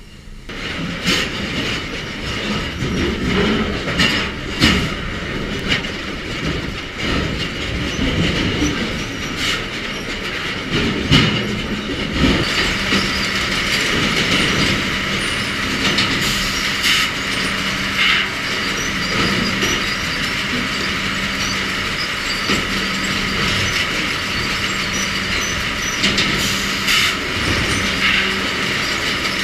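Sawmill log-handling equipment running: steel chain conveyors and a log deck clanking and rattling, with logs knocking against steel, heaviest in the first half. After that it settles into a steadier machine hum and rattle.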